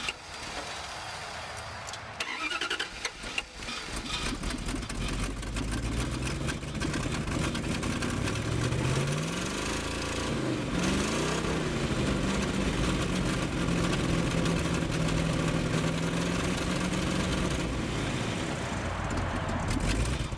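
Truck engine running on wood gas from its gasifier, with no gasoline: it picks up and gets louder about four seconds in, revs up and down around the middle, then holds a steady speed.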